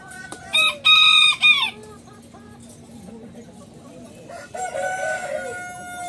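Caged roosters crowing: a loud crow in three short broken pieces about half a second in, then a longer, quieter crow starting about four and a half seconds in.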